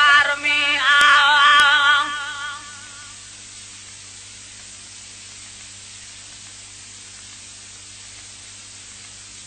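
Solo voice singing a Sindhi devotional naat with heavy vibrato, ending on a held note that fades out about two and a half seconds in. Then only a steady recording hiss with a low hum remains.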